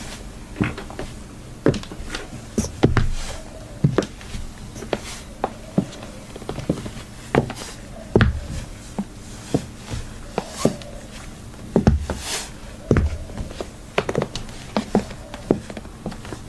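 High-heeled shoes clicking on a hard floor in small-room reverb: irregular steps, one or two sharp heel taps a second, some landing with a dull thud.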